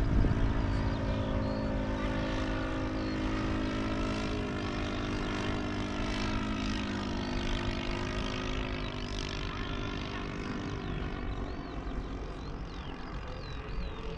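Engine and propeller of a radio-controlled scale model airplane, running steadily. The pitch dips slightly about four seconds in, and the sound grows gradually quieter over the last few seconds.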